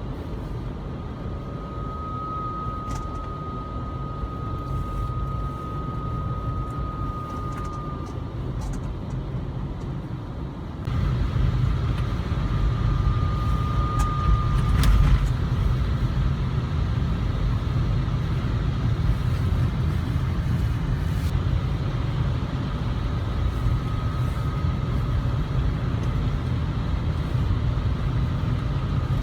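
High-pitched whine from a 2002 Lexus RX300's automatic transmission: a thin steady tone that fades in and out several times over the car's low engine and road rumble, which gets louder about 11 seconds in. The owner found that the noise went away after he changed the transmission fluid and filter.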